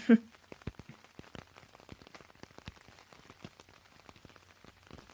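Rain ambience: scattered raindrops pattering irregularly, with a brief voice sound right at the start.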